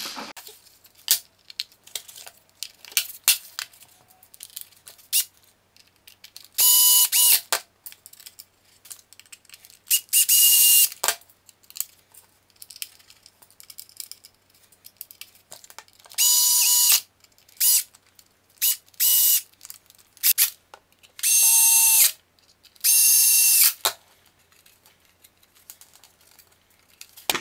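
Small cordless electric screwdriver running in short bursts of about a second, about five times, driving the case screws of a battery charger back in. Light plastic clicks and knocks from handling the charger housing come between the bursts.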